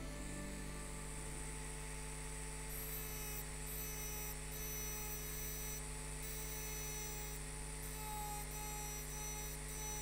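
Electric rotary glass-engraving handpiece running with a steady hum and whine, its small burr cutting into a wine glass, a buzz like a bee in a little honey pot. From about three seconds in, a high grinding hiss comes and goes as the burr touches the glass.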